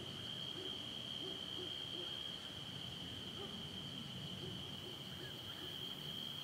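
Steady, unbroken chorus of night insects, one high shrill pitch. Faint, short low calls repeat a few times a second underneath.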